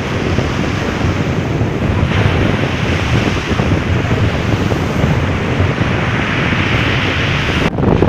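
Rough surf breaking and washing over a pebble beach, a steady rush of waves with wind buffeting the microphone. Shortly before the end the sound cuts abruptly to a louder, deeper rumble of wind on the microphone.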